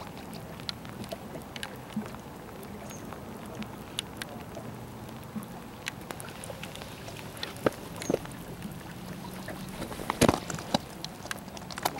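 Scattered taps, scrapes and rustling close to the microphone as someone moves on the rocks beside it, over a steady low hum and small water sounds; a burst of louder knocks and rustling comes about ten seconds in.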